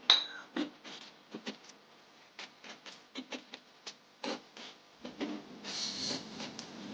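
Kitchen prep sounds: a series of light, irregular clicks and taps, with a short rustling scrape about six seconds in.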